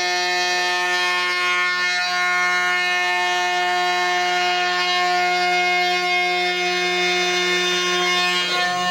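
CNC router running a profile cut in Tasmanian oak with an 8 mm slot drill: a steady, droning whine with several pitches at once. Its pitch shifts slightly about two seconds in and again near the end, as the feed rate is altered by hand during the cut.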